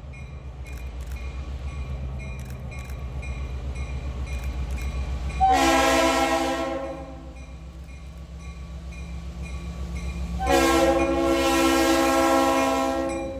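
Diesel locomotive of a Mass Coastal freight passing close by, its engine a low, pulsing rumble that grows as it nears. Its multi-tone air horn sounds twice: a short blast about five and a half seconds in, and a longer one from about ten and a half seconds in that runs nearly to the end.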